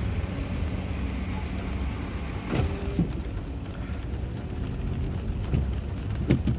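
Rain and passing cars heard through a slightly opened window: a steady hiss of rain over the low rumble of traffic, with a couple of brief sharper sounds about two and a half seconds in and near the end.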